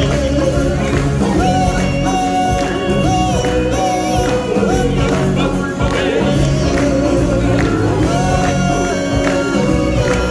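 Upbeat stage-show song: a chorus of singers over a steady percussion beat, with long held sung notes.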